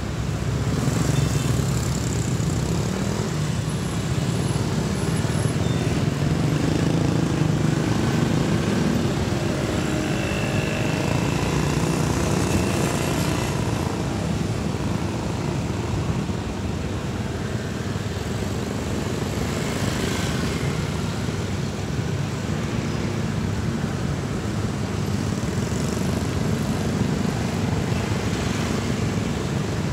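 Busy street traffic, mostly small motorcycles and scooters with a few cars, making a steady engine and tyre drone that swells several times as vehicles pass close.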